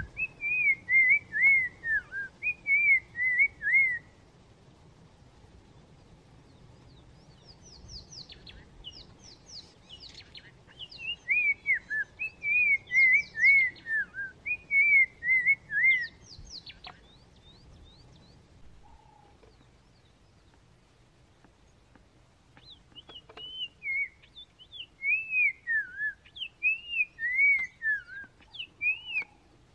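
Tchagra singing: bouts of rapid, slurred whistles, each note falling in pitch, repeated three times with pauses between, mixed with higher, quicker down-sweeping notes.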